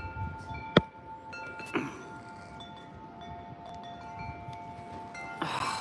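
Wind chimes ringing, several overlapping notes sounding and fading in turn. A single sharp knock about a second in, and a rustle near the end, from the phone being handled.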